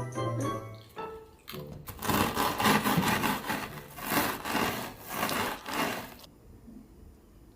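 Background music fades out, then a series of rough back-and-forth scraping strokes, about six, which stop abruptly near the end.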